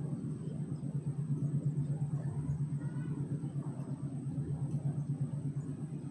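Train rumbling along the track: a steady low rumble with a quickly fluttering level and no horn.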